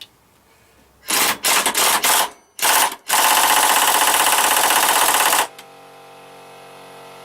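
Husky pneumatic impact wrench, fitted with a 24 mm impact socket, hammering on a hardened bolt to tighten it: a few short trigger bursts, then about two seconds of continuous rapid hammering that stops abruptly. An air compressor then kicks in and runs with a steady hum that slowly grows louder.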